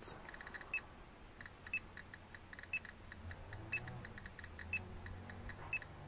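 GQ GMC-320 Plus Geiger–Müller counter clicking as it registers radiation from a uranium-bearing rock held about a centimetre below it, at around 530–550 counts per minute. The clicks are faint and sharp, with a more distinct tick about once a second.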